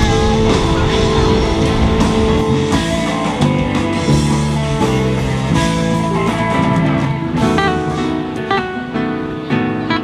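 Music led by guitar, with a drum kit.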